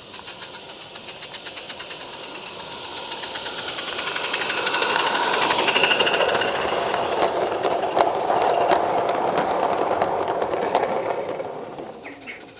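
Small live steam garden-railway locomotive chuffing rapidly, about four to five exhaust beats a second, growing louder as it approaches. Its train of vans then rolls close past with a loud rumble of wheels on the rails and a few sharp clicks, fading near the end.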